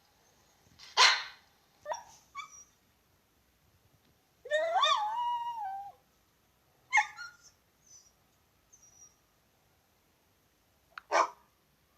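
Dog barking in short separate barks, with one longer drawn-out whining call around the middle.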